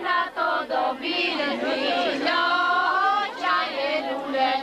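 A group of women singing together, unaccompanied, in a traditional Albanian wedding song, with long held notes.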